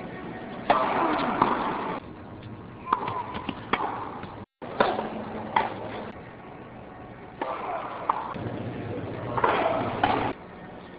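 Tennis ball struck by rackets during rallies, a series of sharp single pops at irregular intervals. Crowd noise swells twice between the shots.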